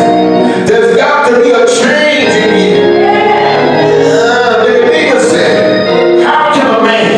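Loud gospel music with several voices singing over instrumental backing.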